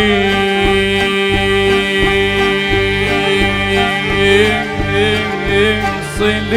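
Arabic tarab music: an instrumental passage between sung lines, with held string notes and plucked strings over a steady beat.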